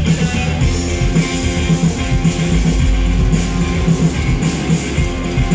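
Live rock band playing loud and amplified during a soundcheck: guitar over bass with a steady beat.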